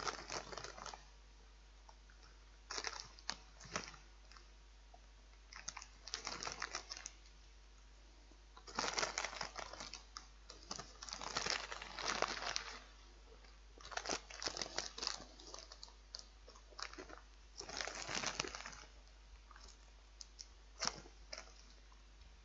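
Plastic snack packets crinkling as a hand rummages through a multipack bag, in repeated crackly bursts of about a second each with short pauses between.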